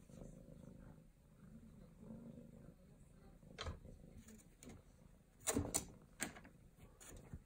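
Domestic cat purring in a faint low rumble, with several sharp taps and knocks in the second half, loudest in a quick cluster about two thirds of the way through, as the cat paws at and presses against a small clear fish tank.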